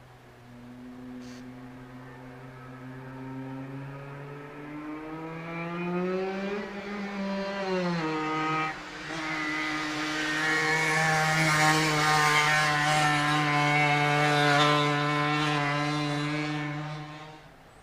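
Yamaha TZM single-cylinder two-stroke engine breathing through a DGW expansion chamber, accelerating hard on track: the revs climb, drop with a short dip in level about eight seconds in, then hold high and loud before the throttle shuts off abruptly near the end.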